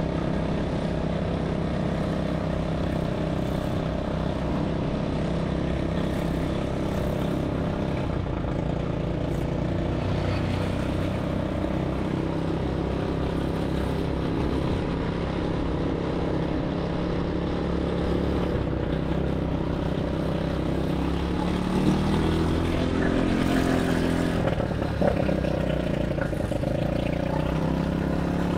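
ATV engine running steadily under way, its pitch rising and shifting as it revs about three-quarters of the way through.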